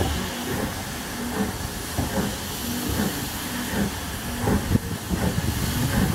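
Steam-hauled passenger train on the move, heard from an open carriage window: an irregular run of low knocks and clunks from the wheels and couplings over the track, with a steady hiss. The train is hauled by S&DJR 7F 2-8-0 steam locomotive no. 53809.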